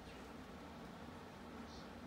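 Low steady room hum and hiss, with one faint, short high-pitched sound near the end.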